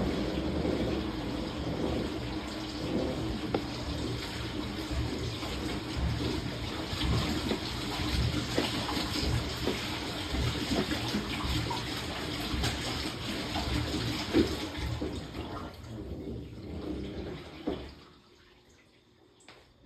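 Samsung top-load washing machine with water rushing and sloshing inside the drum, with uneven low knocks. It stops abruptly about eighteen seconds in.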